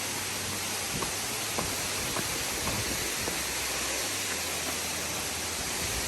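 Steady, even rushing noise, with a few faint clicks scattered through it.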